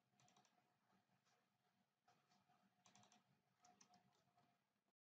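Very faint computer keyboard typing: scattered key clicks, some in quick runs of three or four, as a button's label text is deleted and retyped. A faint steady hum runs underneath.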